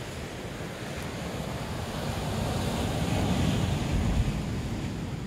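Ocean surf breaking and washing up the beach, swelling to a peak about three and a half seconds in, then easing off, with wind rumbling on the microphone.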